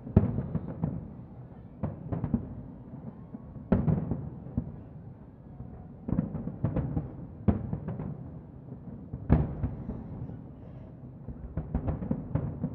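Distant fireworks shells bursting: a run of deep booms at uneven intervals, the sharpest right at the start, with a continuous rumble between them. The booms cluster around the middle and again near the end.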